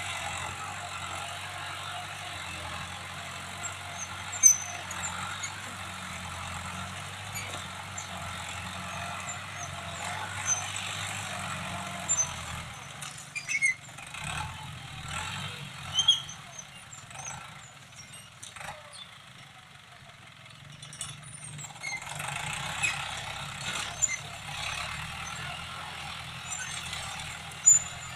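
Diesel farm tractor engine running steadily as it pulls a disc plough through the soil. The drone drops away for several seconds about halfway through and then comes back, with a few sharp knocks scattered through it.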